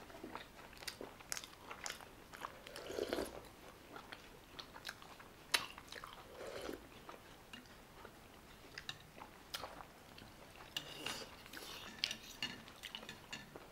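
A person chewing steamed chicken momo (Nepali dumplings), with scattered sharp wet mouth clicks and smacks.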